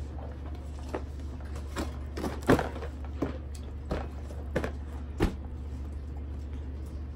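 Small plastic toy kitchen pieces knocking and clicking as they are handled, about seven separate light knocks over a few seconds, with a steady low hum underneath.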